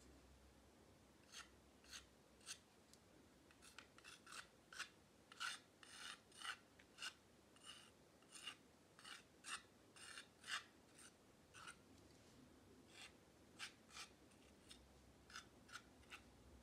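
Metal palette knife scraping thick paint across a canvas board in short, quick strokes, about two a second. The strokes are faint.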